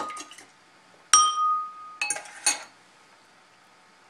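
A utensil clinking against kitchen bowls: a few light clicks at the start, one sharp ringing clink about a second in that rings on for almost a second, then a quick run of shorter clinks.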